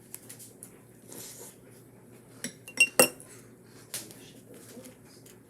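Small hard objects clinking and tapping, with two sharp clinks close together about three seconds in, the second ringing briefly, and a few lighter taps around them.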